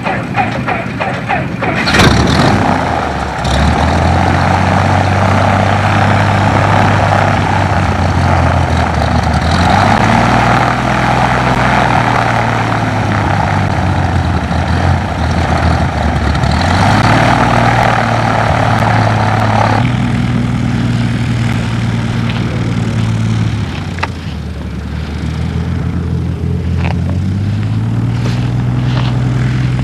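Small propeller airplane's piston engine running after start-up, with a loud burst about two seconds in. Its pitch then steps up and down several times as the engine speed changes.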